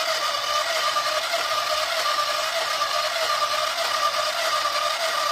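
Multikids My Style toy sewing machine running steadily, its small electric motor driving the needle forward along a straight seam: an even whir with a steady hum.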